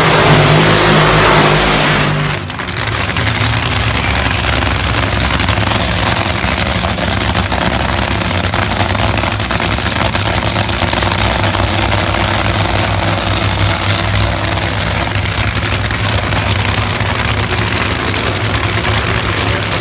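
Nitro Funny Car drag racers' supercharged V8 engines: a full-throttle burnout that cuts off about two seconds in, then the engines idling loudly and steadily at the starting line.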